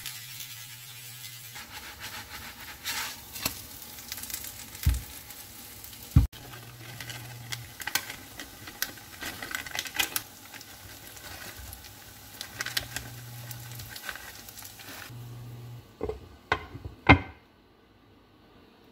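Shredded-potato pancake sizzling in oil in a nonstick frying pan, with scattered light taps and clicks. Near the end a glass lid knocks twice onto the pan, and the sizzle drops at once to a faint hiss under the lid.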